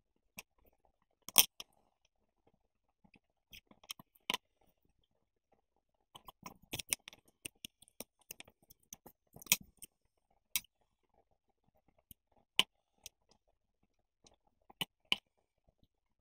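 Thin paper strips being handled and trimmed with scissors: scattered sharp snips and clicks with short paper rustles, busiest in the middle.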